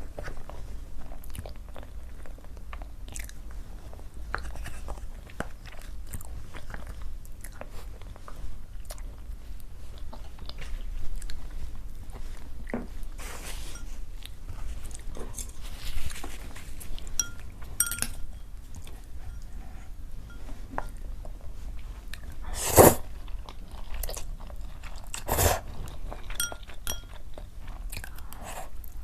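A person chewing and biting food up close, with crunching and small wet clicks of the mouth, and two sharper, louder crunches about two-thirds of the way through.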